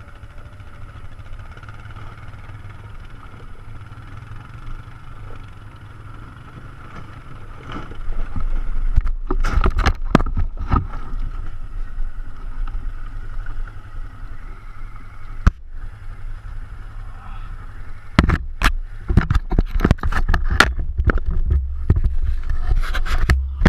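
ATV engine running steadily on a trail ride. About eight seconds in it gets louder and works harder, with sharp knocks and jolts coming in bunches as the quad goes over rough ground.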